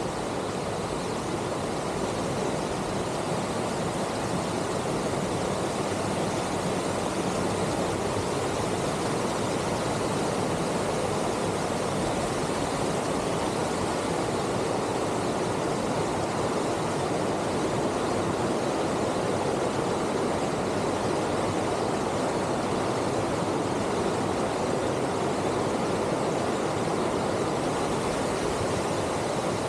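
A steady, unbroken rushing noise that holds the same level throughout, with no distinct strikes or tones.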